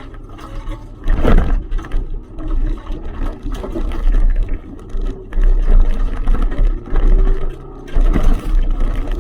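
Hyundai Excel rally car at speed on a stage, heard from inside: the engine rises and falls in pitch as it is driven hard through the gears, over a heavy low road and wind rumble.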